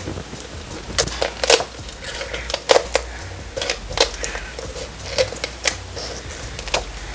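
Poultry shears cutting through a raw turkey's rib bones to remove the backbone: about a dozen sharp, irregular snaps and clicks.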